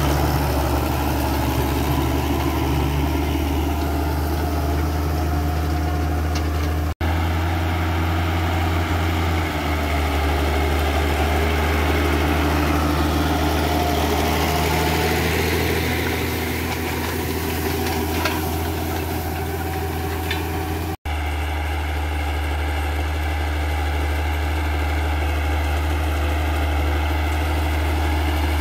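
Turbocharged Zetor tractor diesel engine running steadily under load while pulling a cultivator through the soil. The sound cuts out twice for an instant where the recording is edited.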